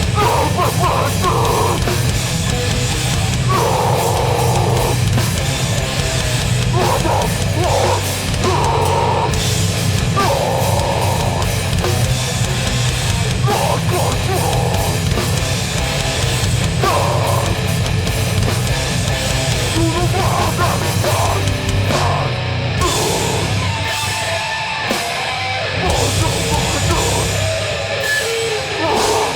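Hardcore band playing live at full volume, with distorted guitars, bass and drums. About two-thirds of the way in the playing turns choppy, with short breaks between hits.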